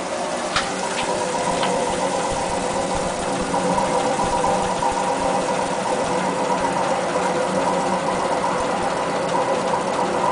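Coin-operated rice milling machine running with a steady motor hum and hiss, near the end of its milling cycle. Three faint ticks sound in the first two seconds.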